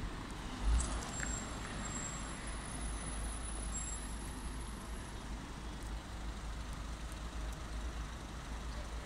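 Heavy road-transport convoy engines, a truck and its escort vehicles, running with a steady low rumble as the convoy approaches. There is a brief knock about a second in.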